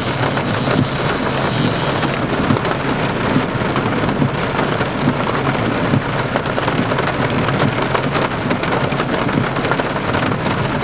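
Steady heavy rain mixed with occasional pea-size hail: a dense hiss of many small drop and hailstone impacts.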